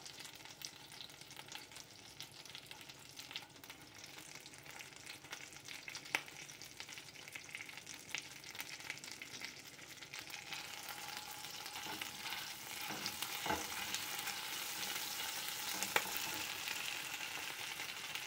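Food frying and sizzling faintly in a pan on a gas stove, with a few sharp clicks and taps as corn tortillas are turned by hand on a comal and the pan is stirred with a spatula. The sizzle grows louder a little past halfway through.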